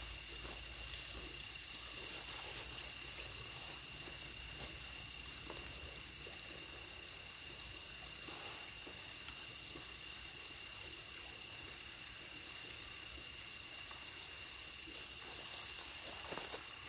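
Quiet outdoor ambience: a steady faint hiss with a thin, steady high-pitched tone and faint scattered ticks.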